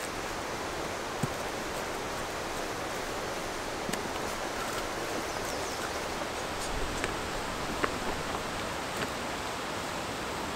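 Wood campfire crackling: a few sharp pops, a second or more apart, over a steady rushing noise.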